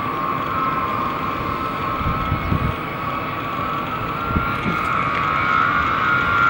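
Ilyushin Il-76 four-engine jet transport on landing approach: its turbofans give a steady high whine over a rushing roar that grows louder as the aircraft nears. A few low thumps come about two seconds in and again past four seconds.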